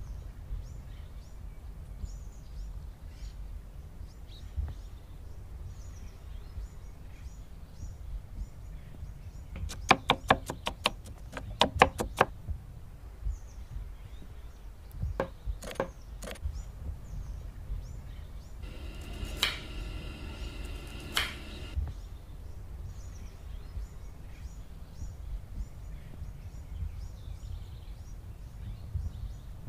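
Knife chopping potato on a wooden cutting board: about a dozen quick strokes around ten seconds in, then a few more strokes a few seconds later. Under it there is a steady low background rumble with faint bird chirps, and a pitched, buzzy sound lasts about two seconds past the middle.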